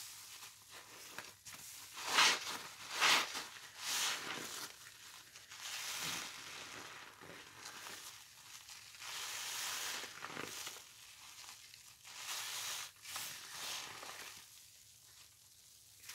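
Wet sponges full of pine-cleaner suds being squeezed and worked by hand: a run of uneven wet, crackling squeezes, the loudest about two and three seconds in.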